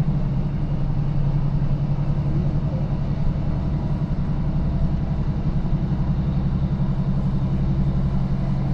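Diesel multiple-unit passenger train running along the line, heard from inside the carriage: a steady low engine drone with a fast, even flutter and the rumble of the wheels on the track.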